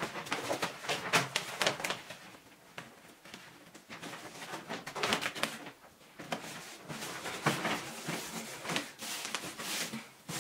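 Sheet of wallpaper being handled, rustling and crinkling in several bursts of handling.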